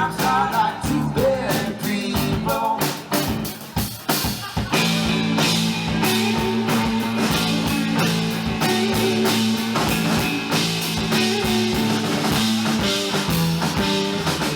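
Live band playing a rock song with drums: choppy, stop-start playing at first, then from about five seconds in a fuller, steady sound with held low notes.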